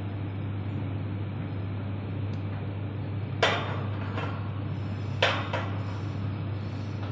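Steady low mechanical hum with two sharp knocks about two seconds apart, the second a quick double knock.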